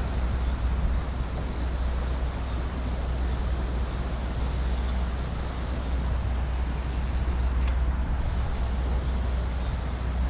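Steady roar of water rushing through a spillway, with a heavy low rumble underneath.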